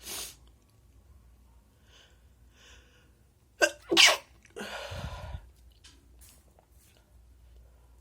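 A person sneezing twice in quick succession, about three and a half and four seconds in, the two loudest sounds, after faint in-breaths building up. The sneezes are followed by about a second of loud, noisy rushing breath.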